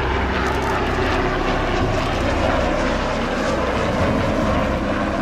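Westland Sea King helicopter, with twin Rolls-Royce Gnome turboshaft engines, flying low past: a steady turbine and rotor noise.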